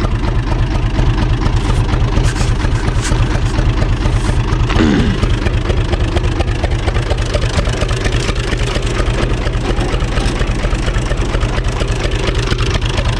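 Universal U445 DT tractor's four-cylinder diesel engine running steadily, with an even, fast low knock.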